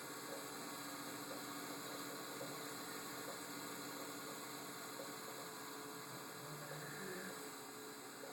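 Desktop computer running with a steady hum and hiss, the odd noise the owner hears from the PC at power-on.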